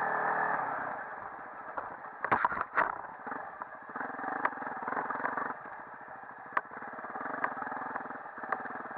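Dirt bike engine running on a rough bush trail, dropping from higher revs to a low, steady run about half a second in. Sharp knocks and rattles come in a cluster about two to three seconds in, with single knocks later.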